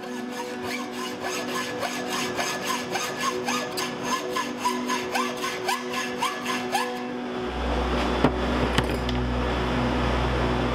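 Hacksaw cutting a small piece of metal held in a bench vise, in quick even strokes about four a second that stop about seven seconds in. A low hum then comes in, and two sharp clicks follow.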